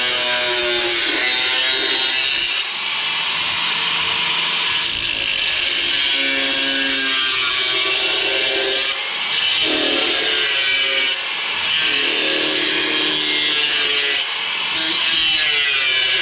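Electric grinder grinding sheet steel on a truck rocker panel back to bare metal, running steadily with brief let-ups every few seconds as it is eased off the metal.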